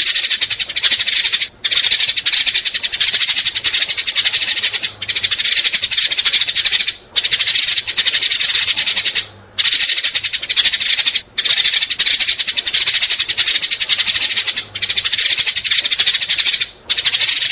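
House sparrows chirping in a fast, continuous chatter, broken by brief pauses every two to three seconds.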